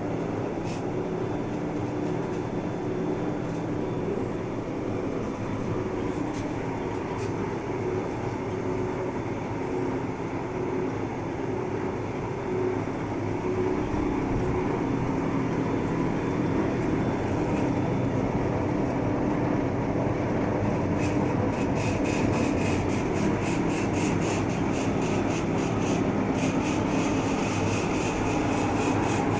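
Large Cincinnati Milacron engine lathe running, a steady mechanical hum with a geared drone. From about two-thirds of the way through, a fast, rattling clatter joins it and the sound grows a little louder.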